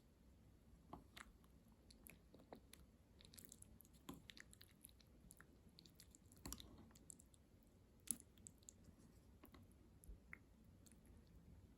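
Near silence with faint, irregular clicks and light taps, and a soft knock about six and a half seconds in.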